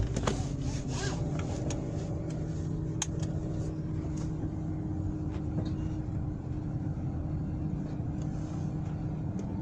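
Car engine running low and steady, heard from inside the cabin while the car crawls in a traffic jam. Rubbing and clicking of the phone being handled come and go in the first few seconds.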